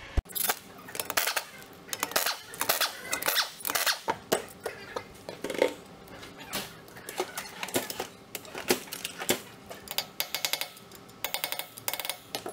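Metal hand tools clinking and knocking on wheel hardware while the wheel and hub nut come off, with quick runs of clicks in the last few seconds.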